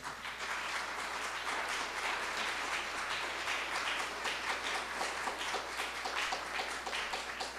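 Congregation applauding, many hands clapping at once, starting suddenly and beginning to thin to more separate claps near the end.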